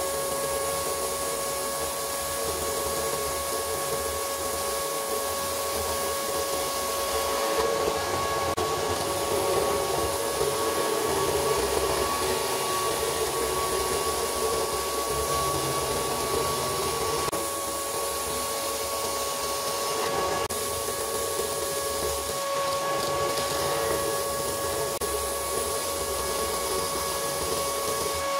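Steady whine and rush of a vacuum extracting dust through the drill-press sanding table's dust port, with the drill press spinning the sanding drum; the pitch holds level, with small changes in the hiss.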